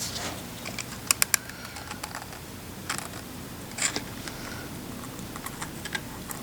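Light clicks and taps of metal parts and tools being handled at a workbench, with three quick clicks about a second in and a couple of single ones later, over a steady low background hum.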